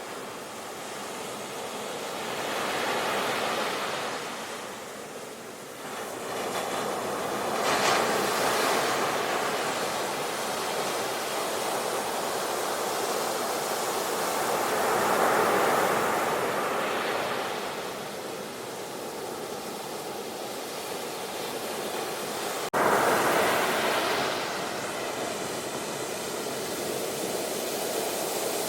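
Ocean waves breaking and washing up as foam, the surf swelling and easing every few seconds. A sharp click with a sudden jump in loudness comes about three-quarters of the way through.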